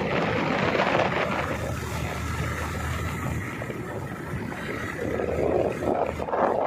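Motorcycle engine running at a steady road speed, with wind rushing over the microphone.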